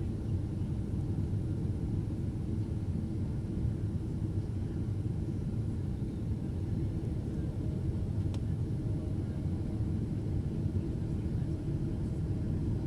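Steady cabin rumble of a Boeing 767-400 jet airliner in flight, the low, even noise of engines and airflow heard from a passenger seat, with a single faint click about eight seconds in.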